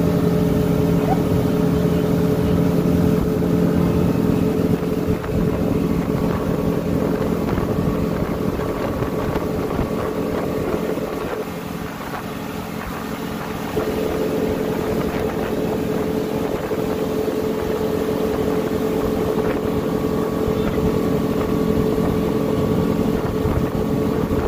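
Mercury outboard motor running steadily at speed, its drone mixed with the rush of wake water and wind on the microphone. The sound drops a little for a couple of seconds about halfway through.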